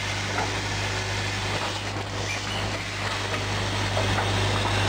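Premade-bag packing machine running: a steady low electric hum under a continuous haze of mechanical noise, with a few faint ticks.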